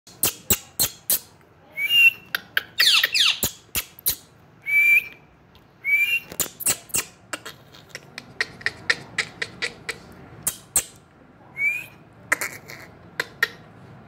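Indian ringneck parakeet giving short rising whistled chirps, with a quick run of squeaky, gliding notes about three seconds in, among many sharp clicks.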